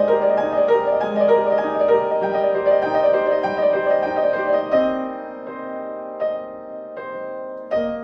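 Instrumental piano music: a flowing pattern of sustained notes that thins to sparser, quieter notes about five seconds in.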